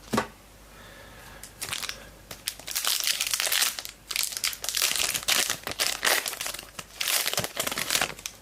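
Foil wrapper of a trading-card pack crinkling as it is torn open and handled, in irregular bursts from about two seconds in. A single sharp tap comes at the very start.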